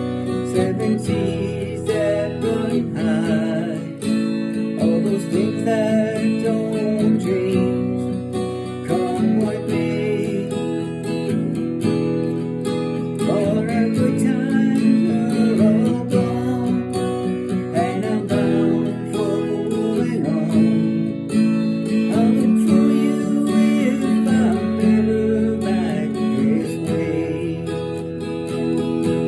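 Music: acoustic guitar strumming steady chords, with a wavering melody line over them.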